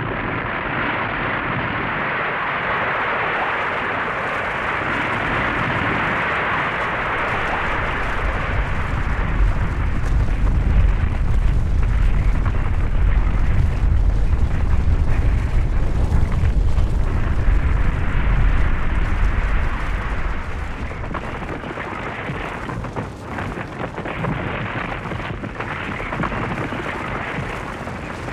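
Avalanche sound effect: a continuous rushing hiss of moving snow that builds into a deep, heavy rumble after several seconds, then eases a little after about twenty seconds.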